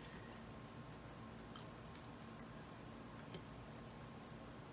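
Faint wet squishing and crunching of stale bread cubes, soaked in an egg-and-milk mixture, being pressed down with a spoon in a ceramic baking dish, with a few light scattered clicks.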